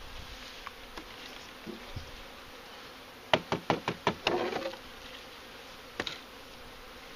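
Honeybees buzzing steadily around the hives, with a quick run of about five sharp knocks a little past three seconds in, a brief clatter right after, and one more knock about six seconds in.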